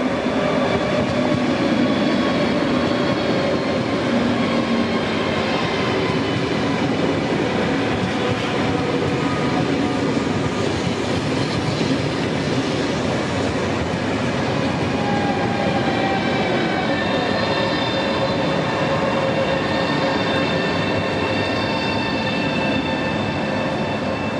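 Trenitalia Frecciarossa 1000 electric high-speed train rolling slowly past the platform: a steady rumble of wheels on rail with several high whining tones held over it.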